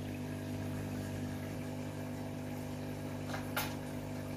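Aquarium pump humming steadily, with two faint clicks about three and a half seconds in.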